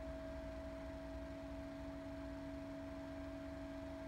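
Small battery-powered Opolar USB desk fan running with a steady drone of two held tones, one higher and one lower. The drone is an odd noise from the fan that the owner takes for a fault, though he suspects the batteries may be to blame.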